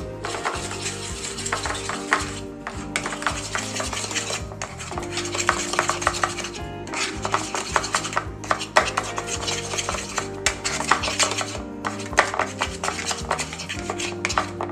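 A spoon stirring a thick Greek-yogurt dip in a bowl: rapid, irregular clinks and scrapes of the spoon against the bowl.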